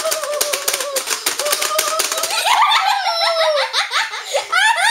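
Rapid clicking of plastic buttons pounded on a Pie Face Showdown game. About halfway through, the game's spring-loaded hand swings, and children burst into loud laughter and squeals.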